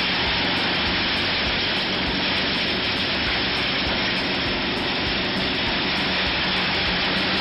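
Truck-mounted wood chipper running under load as a crane feeds it branches and brush: a steady, dense noise of wood being chipped, over a low engine hum.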